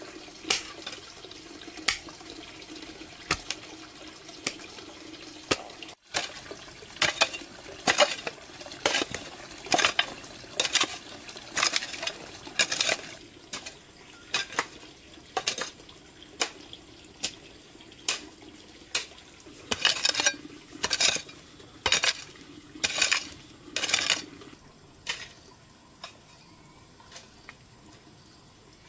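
Water running in a kitchen with repeated clinks and knocks of dishes and utensils being handled, as in washing up or rinsing food at a sink. The clatter is busiest through the middle, and both the water and the clatter stop a few seconds before the end.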